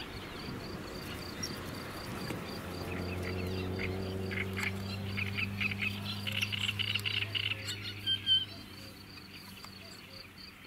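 Frogs croaking from the pond, in clusters of short pulsed calls through the middle, over a steady even insect ticking. A low steady hum sets in about a quarter of the way through and fades before the end.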